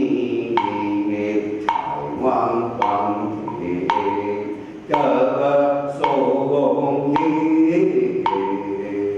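Group of voices chanting together in slow unison, paced by a wood block struck about once a second.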